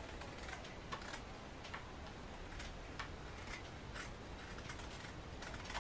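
Small kitchen knife scraping the skin off a pointed gourd (parwal), peeling it off in patches. The scrapes come as faint, irregular little ticks and scratches.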